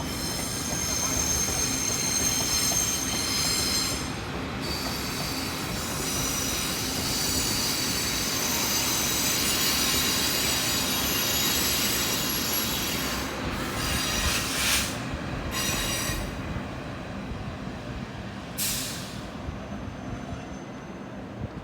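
Train wheels squealing against the rails as a train moves slowly out of the depot, several high screeching tones held together over a low rumble. The squeal fades about two thirds of the way through, followed by two short hissing bursts.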